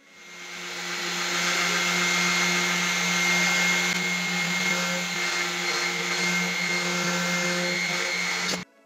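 Handheld electric polisher running with its pad pressed on a steel cleaver blade, polishing the flat. The motor winds up over about the first second, runs steadily with a constant whine, then stops abruptly near the end.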